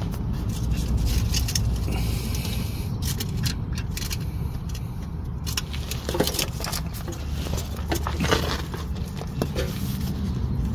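Scraping, rustling and clicking handling noise from someone shifting around under a truck with a camera in hand, over a steady low rumble.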